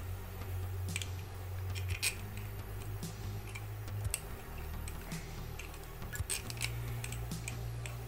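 Light metallic clicks and taps as the metal body of a table fan motor is handled and a screw is fitted into its rear cover by hand, over a steady low hum.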